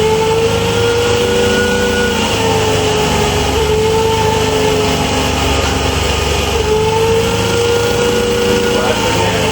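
A small engine running steadily, its pitch drifting slightly up and down.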